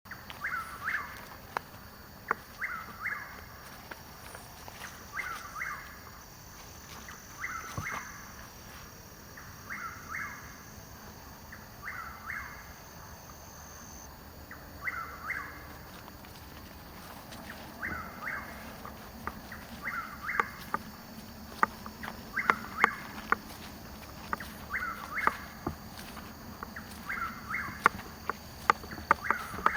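Chuck-will's-widow singing its repeated call, one call every two to three seconds with a short pause about halfway through. Sharp clicks between the calls become louder and more frequent in the second half.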